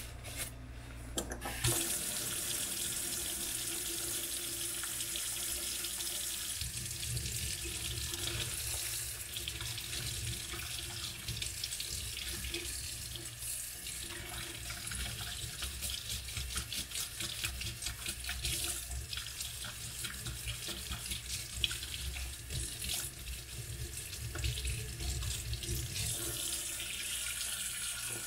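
Kitchen tap turned on about two seconds in and running at full flow, water pouring and splashing onto a rolled-up waterproof jacket liner and into a stainless steel sink.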